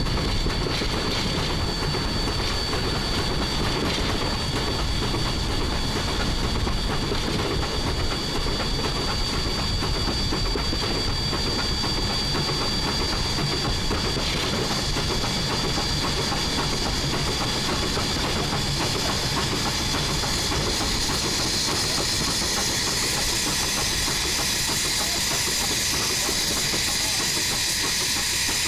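1910 Swedish-built E2 steam locomotive running along the line, with a steady rumble of its wheels and running gear. Steam hissing from the fittings on the boiler top grows louder about twenty seconds in.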